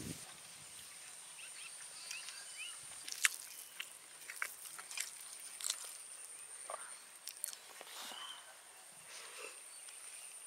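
Outdoor rural ambience: a steady high-pitched insect drone, with scattered short bird chirps and small clicks.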